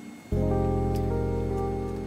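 Soft instrumental music: a low held chord starts about a third of a second in and slowly fades.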